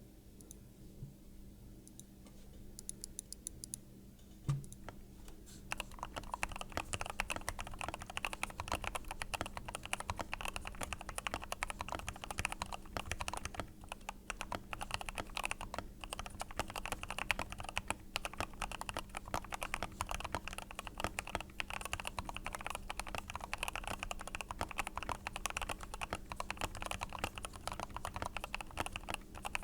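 Typing on an NT75 custom mechanical keyboard with Gateron Pro Milky Yellow linear switches and XDA keycaps: a few scattered keystrokes at first, then from about six seconds in fast, continuous typing.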